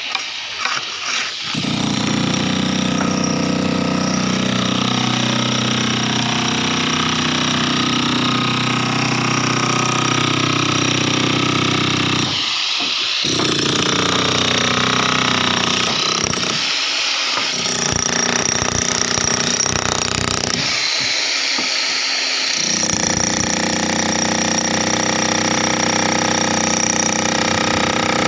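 Power tool cutting concrete, running continuously with a steady pitched hum over a hiss. Its low end drops out briefly three times partway through.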